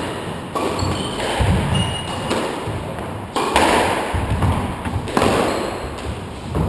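A squash rally: the rubber ball is struck by rackets and smacks off the court walls, sharp hits a second or more apart, each echoing in the enclosed court. Footsteps run on the wooden floor.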